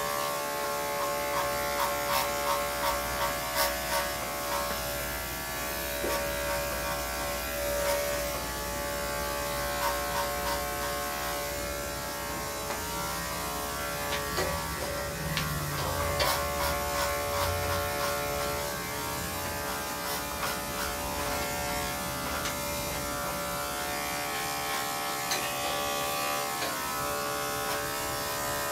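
Electric dog grooming clippers running with a steady buzz as they trim a dog's coat. The buzz swells in short, evenly spaced pulses for a few seconds near the start as the blade works through the hair.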